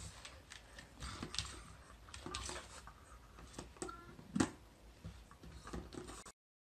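A clear plastic jar knocking and clicking lightly against a wooden floor as a pug noses and pushes it. The knocks come scattered and irregular, the loudest about four and a half seconds in.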